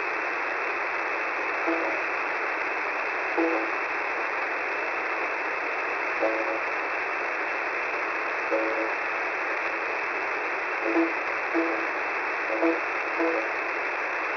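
Shortwave radio on 10755 kHz heard through a narrow single-sideband passband: steady static hiss, with about ten short, plucked-sounding musical notes leaking through at irregular moments.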